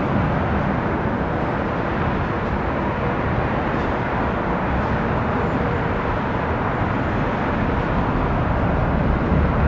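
Jet engines of a departing twin-engine widebody airliner, a steady low rumble as it climbs away.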